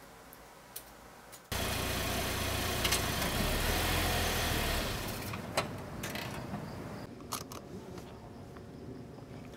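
Soft laptop keyboard clicks, then a sudden cut to loud car engine and road noise lasting about three seconds. It eases to a lower steady hum with a few sharp clicks.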